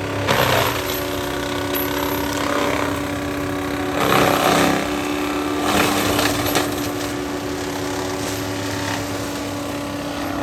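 CAT 299D3 XE compact track loader's diesel engine running steadily under load while its HM418 mulching head spins, with about four louder bursts as the drum shreds manzanita brush.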